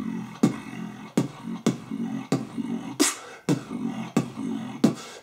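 Beatboxed groove of sharp kick-drum clicks, with one hissing snare about three seconds in, and a pitched, buzzing bass hummed between the hits. The bass is a high bass: a chest bass pushed from the chest with a sung tone on top.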